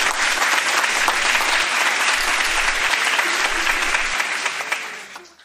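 Canned audience applause: steady, dense clapping that tails off and stops abruptly at the end.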